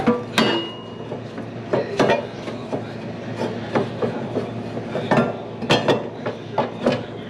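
Irregular metal clanks and knocks of a socket wrench working the 15/16 bolts off a lawn mower's blades, over a steady low hum.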